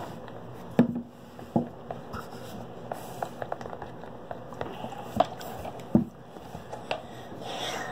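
Plastic spoons stirring slime in plastic tubs, with a few irregular sharp knocks as a spoon strikes the container.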